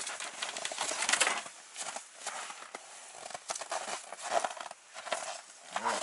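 Handling noise from a Tonar Tornado hand ice auger as it is lifted and stood upright: irregular clicks and knocks of its metal parts over rustling of clothing and movement on the snow.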